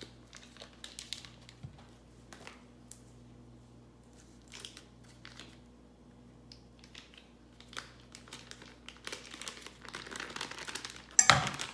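Paper butter wrapper crinkling and tearing as it is peeled off a stick of butter, in scattered short crackles that grow denser toward the end. A louder crinkle with a low knock comes near the end as the butter is pushed out of the wrapper into a metal saucepan.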